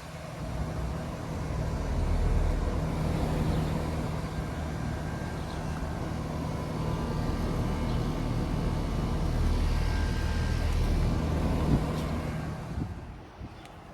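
Outdoor air-conditioner condensing unit running in cooling mode: a steady compressor hum under the even rush of the condenser fan.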